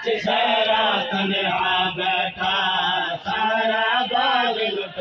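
Men's voices chanting a noha, a Shia mourning lament, through a microphone, in short sung phrases about a second long with brief breaks between them.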